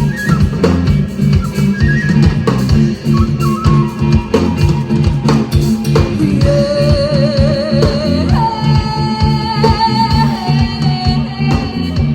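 Loud music with a steady drum beat, bass and guitar; a wavering, held melody line comes in about halfway through.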